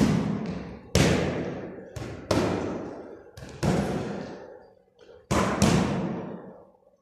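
Gloved punches landing on a heavy punching bag, about eight thuds, several in quick pairs, each ringing out in a long echo off bare concrete walls. The punching stops about a second before the end.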